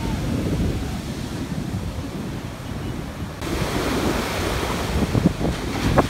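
Big surf breaking and washing up a sandy beach, with wind buffeting the microphone. About three and a half seconds in, the rush of the surf gets fuller and hissier.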